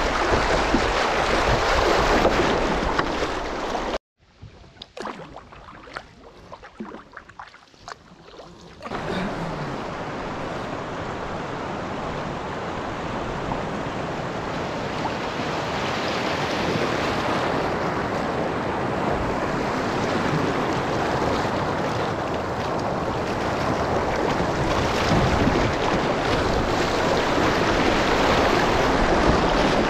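Fast water rushing past a kayak's bow as it runs a boat chute. About four seconds in it drops suddenly to a much quieter stretch with faint drips and clicks; about five seconds later the steady rushing returns and grows slightly louder toward the end.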